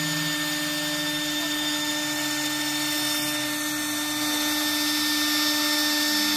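A 3 kW HSD electric spindle on a CNC router running with a steady whine while its bit cuts Corian solid-surface sheet, over an even rushing noise from the cut.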